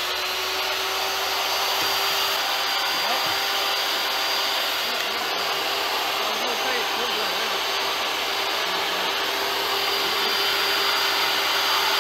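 Portable jobsite table saw running steadily at speed with its blade spinning free, not cutting: an even motor whine and whir.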